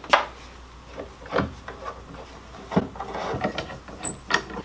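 Wooden-handled bar clamps being unscrewed and handled on a glued plywood board, with rubbing and about four sharp wooden knocks.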